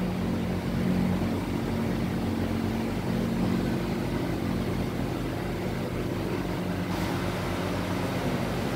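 Steady low machine hum, like a motor running, made of several even low tones that hold without change.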